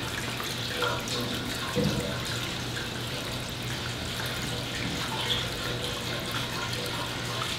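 Water running and sloshing in a darkroom tray as a Van Dyke print gets its fresh-water rinse. The sound is steady, with a couple of light knocks about one and two seconds in.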